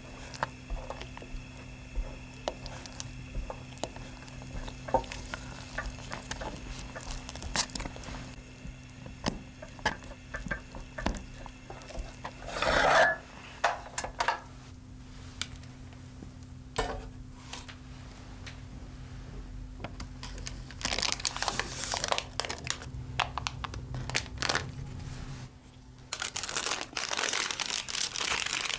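Thick pastry cream being stirred and scraped with a silicone spatula in a saucepan: soft squelching and scattered taps against the pan over a steady low hum. Near the end the hum stops and parchment paper crinkles as it is handled.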